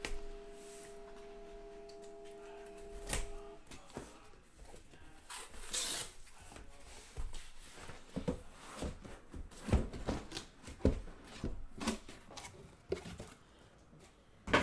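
A cardboard shipping case being opened by hand and the card boxes inside slid out: a rustling scrape of cardboard, then a run of irregular knocks and scuffs as the boxes are handled and set down.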